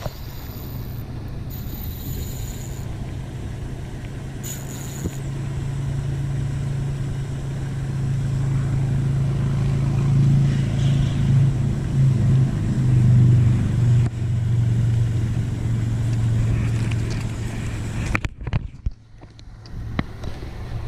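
Pond aerator's motor humming steadily at a low pitch, growing louder through the middle and falling away abruptly near the end.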